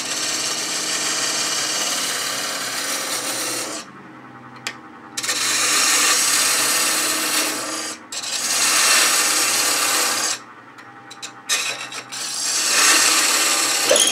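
A turning tool cutting into a spinning wooden blank on a wood lathe, a scraping hiss of shavings coming off in several passes, as the tenon at the end is cut away. In the short pauses between passes only the lathe's steady motor hum is left.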